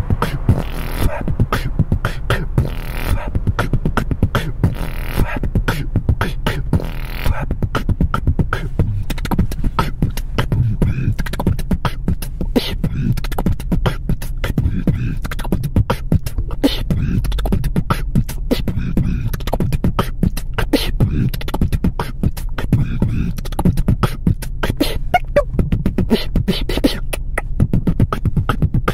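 Beatboxing: a fast, dense run of sharp mouth-made clicks and beats over a strong low bass, in a steady rhythm with no break.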